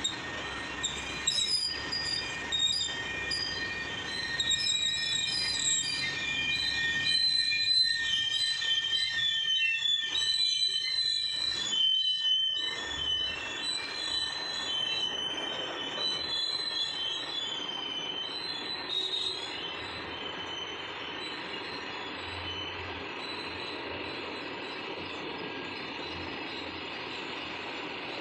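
A long freight train of BCNHL covered wagons rolling past, its wheels squealing in several high, wavering tones over a steady rolling rumble. The squeal fades out about two-thirds of the way through, leaving a quieter rumble.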